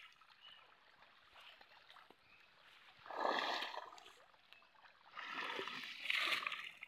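Pond water splashing as a seine net is dragged through the shallows: quiet trickling at first, then a splash about three seconds in and a longer spell of splashing from about five seconds in.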